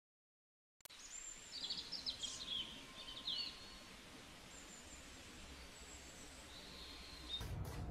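After about a second of silence, birds chirp a few short calls over a steady background hiss of outdoor ambience. Near the end, a few clicks and knocks come in.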